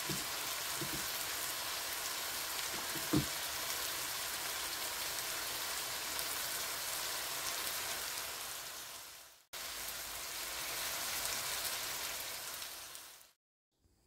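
Squid, shrimp, mussels and chopped peppers sizzling steadily in oil in a frying pan, with a few faint clicks. The sizzle drops out for a moment about nine and a half seconds in, then fades away shortly before the end.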